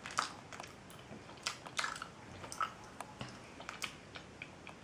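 A person chewing a jelly bean with the mouth closed: quiet, irregular wet clicks and smacks of the mouth.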